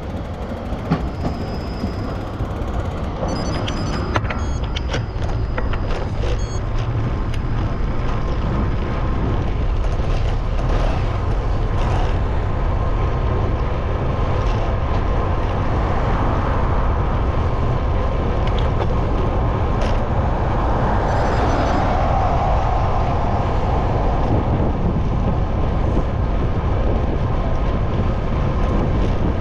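Steady road and traffic noise from a moving bicycle on city streets, with a low rumble of wind on the microphone. The traffic noise swells about two-thirds of the way through.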